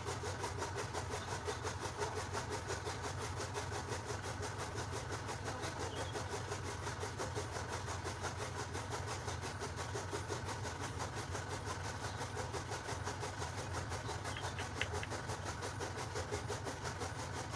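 Steady machine-like background noise with a fast, even pulse that does not change.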